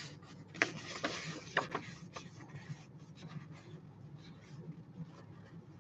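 Faint scratching and rustling of small handling sounds at a desk, with a few light clicks in the first two seconds.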